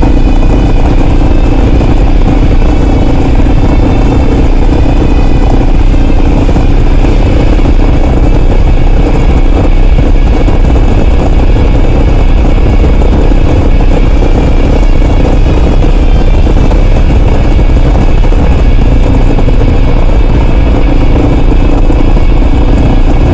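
Kawasaki KLR650's single-cylinder engine running at a steady speed, loud and unchanging, over a constant low rumble.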